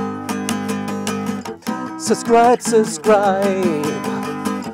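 Acoustic guitar strummed in a steady rhythm, with a man's singing voice joining about two seconds in.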